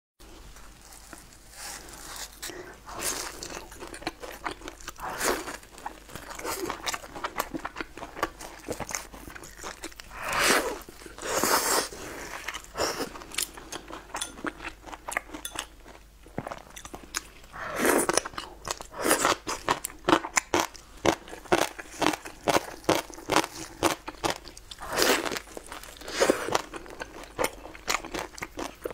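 Close-miked biting, crunching and chewing of a crisp pan-fried stuffed flatbread, with a steady stream of small crackles and a few louder bites.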